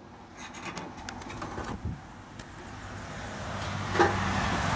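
A motor vehicle running and growing steadily louder as it approaches, with a low engine hum. A few light clicks and knocks from the grill being handled sound over it, the sharpest about four seconds in.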